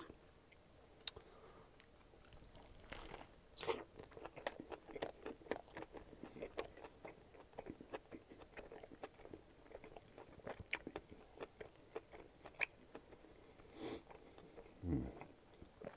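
A bite into a McDonald's McDouble with lettuce, tomato and mayo, then close-miked chewing with many quick wet mouth clicks and smacks.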